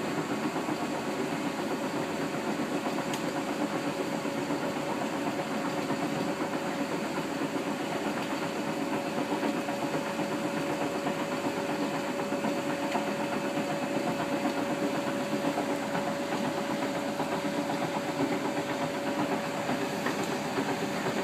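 Bendix 7128 washing machine running steadily as it empties out before the rinse, with a hiss of water and a steady motor whine that comes in a few seconds in and grows stronger.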